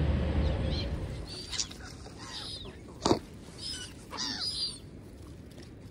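Birds calling with short high chirps several times, after the rumble of a passing vehicle dies away in the first second. A sharp click about three seconds in is the loudest sound.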